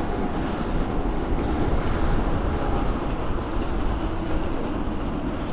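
Wind buffeting the microphone and tyre noise from a moving e-bike: a steady rush, strongest in the low end.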